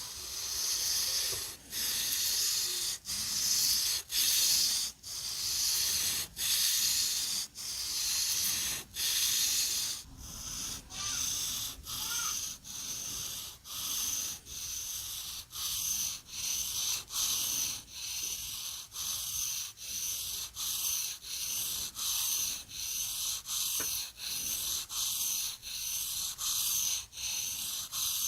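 Steel Morakniv blade worked against an abrasive in steady, repeated rasping strokes, about one a second at first and a little quicker from about halfway on, typical of filing or hand-sharpening a knife.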